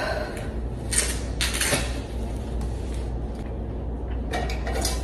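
Light knocks and clatter of objects being handled, loudest about a second in and again near the end, over a low steady hum.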